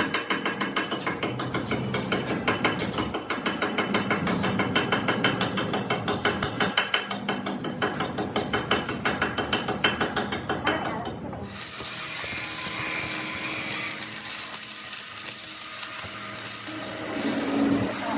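Ratchet wrench clicking in quick, even strokes for about eleven seconds, typical of bolts being run down during reassembly. It then cuts off abruptly, and a steady machine hiss follows.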